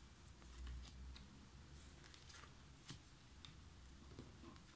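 Near silence, with a few faint, soft clicks and rustles of tarot cards being touched and slid across a table as a card is picked from a fanned-out deck.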